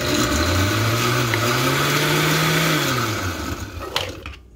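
Oster countertop blender motor running, blending a chunky spinach, blueberry and water mix: the motor pitch climbs as it spins up over about two and a half seconds, then falls as it is switched off and winds down about three seconds in. A sharp click follows near the end.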